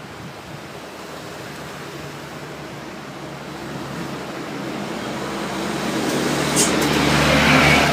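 A road vehicle approaching along the road, its engine hum and tyre noise building steadily over a steady background wash and loudest near the end.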